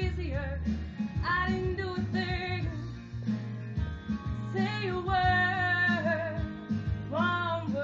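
Young women singing a slow song live, with long held notes that waver in vibrato, in phrases of about a second or two with short breaks, over a steady instrumental accompaniment.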